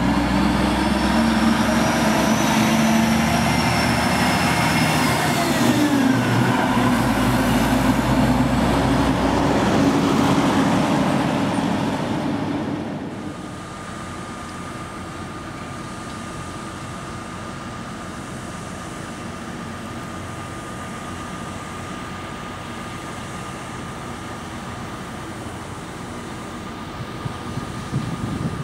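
Heavy semi-trailer truck driving past on a road bridge; its engine drones loudly and falls in pitch as it goes by, then fades. From about halfway through there is a quieter steady rumble with a thin, steady whine.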